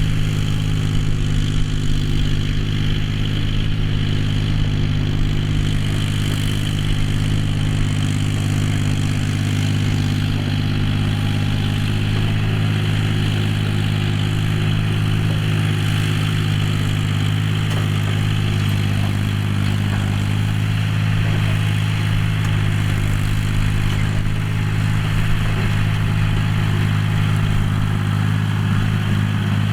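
John Deere 5045D tractor's three-cylinder diesel engine running steadily at a constant pitch while ploughing.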